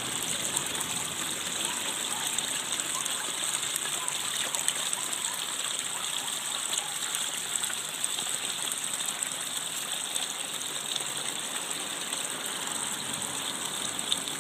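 Steady rushing of running water, an even hiss-like wash with no breaks or changes.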